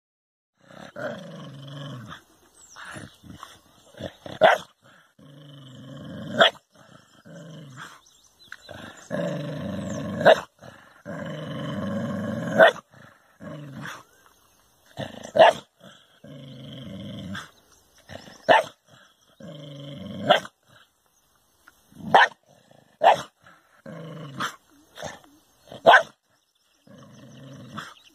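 A dog growling at its own reflection in a mirror, which it takes for another dog. Long low growls are broken by short, sharp barks every second or two.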